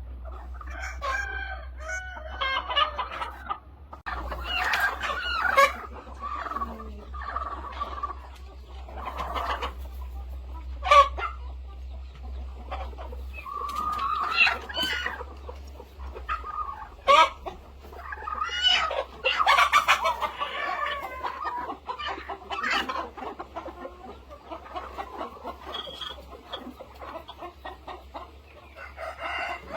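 Flock of chickens clucking and calling, with a rooster crowing among them.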